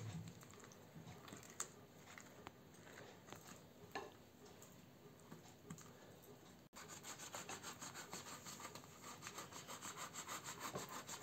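A spoon scraping faintly as it spreads mayonnaise over a thin flatbread, with a few light taps. After a sudden cut this gives way to a metal box grater rasping food in quick, even strokes, about four a second.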